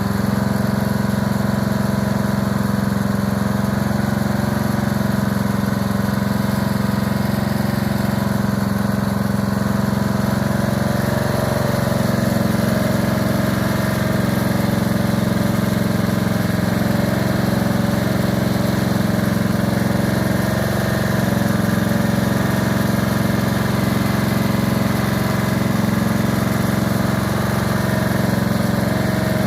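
Engine of a corn-shelling machine running steadily, its pitch rising slightly about twelve seconds in.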